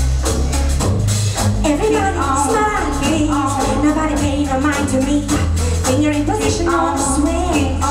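Upbeat stage music with a voice singing a melody over a steady bass line and regular percussion.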